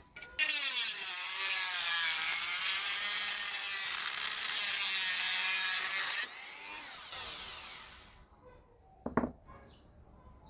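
A small power tool running under load for about six seconds, its pitch wavering, then dropping off and winding down over the next two seconds. A single knock follows near the end.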